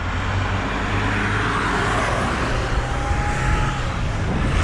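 Highway traffic on a wet, slushy road: a vehicle passes close by, its tyre hiss swelling through the middle and fading, over a steady low rumble.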